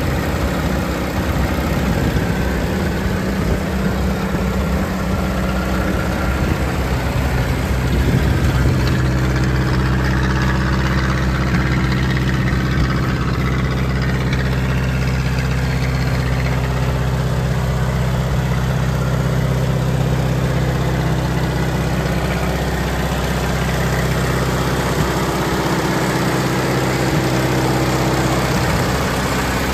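Ferguson 35 Deluxe tractor engine idling steadily at an even speed.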